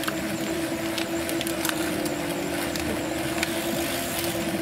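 Wheel-on bicycle trainers whining steadily as riders pedal, one even hum that wavers slightly, with a few light ticks now and then.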